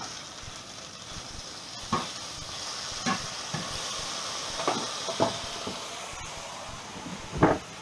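Spice-rubbed chicken breast slices sizzling as they fry in oil in a pan, with a few sharp knocks from the pieces being turned.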